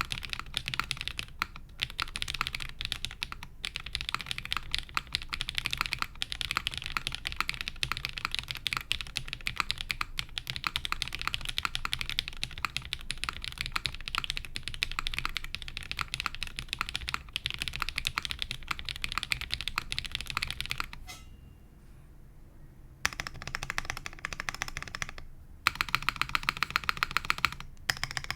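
Typing on a Prophet custom mechanical keyboard with Cobalt POM switches on an undampened half polypropylene plate, with GMK keycaps. Dense keystrokes stop for a pause of about two seconds roughly three quarters of the way in, then resume. Near the end comes a run of rapid, evenly spaced keystrokes.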